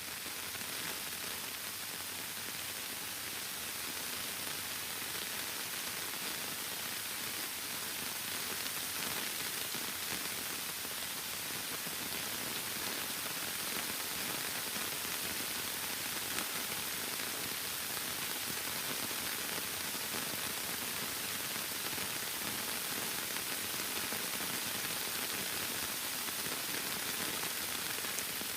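Heavy rain falling steadily, an even, dense hiss that swells slightly in the first second and then holds.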